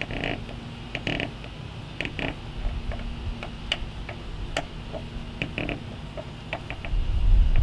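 Plastic paddle board fin creaking, squeaking and clicking against its fin box in short bursts as it is worked by hand. Wind buffets the microphone near the end.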